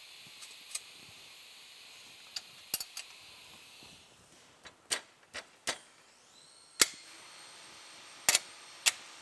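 Scattered sharp clicks and knocks of plastic and metal parts being handled and pressed into place during assembly. There are about a dozen, some in quick pairs, and the loudest comes near seven seconds in.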